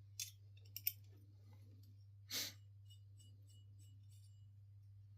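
A few faint, sharp clicks and clinks of small metal RC car parts being handled, with one short, louder rustle about two seconds in, over a steady low electrical hum.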